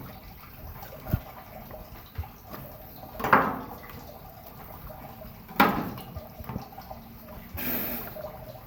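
Running water splashing and dripping, with two louder splashes about three and five and a half seconds in, and a few light knocks.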